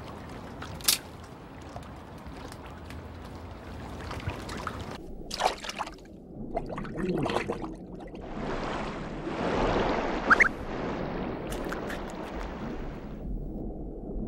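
Water sound effects: trickling and sloshing, swelling louder for several seconds in the second half, with a few sharp clicks scattered through.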